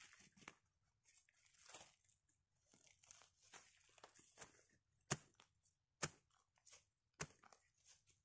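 Faint crunching and rustling in leaf litter and soil while a bamboo shoot is dug up by hand, broken by three sharp knocks about a second apart in the second half.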